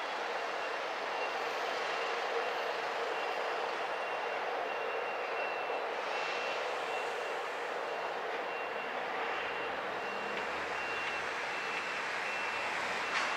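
Steady urban background hum of traffic between trains, with a faint high electronic beep pulsing on and off throughout.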